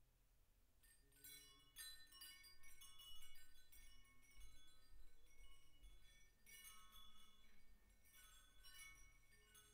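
Faint chimes ringing: many overlapping high, clear struck notes that start about a second in and come in irregular clusters, each note ringing on briefly.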